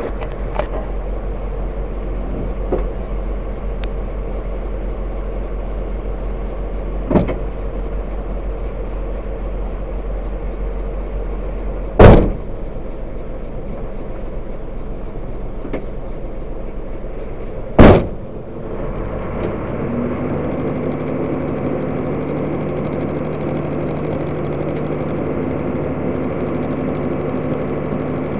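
Hino 500 6x4 truck's diesel engine idling, heard from inside the cab. Sharp knocks sound three times, the loudest near the middle and about two-thirds through; after the last, the engine's low rumble drops and its steady hum comes out clearer.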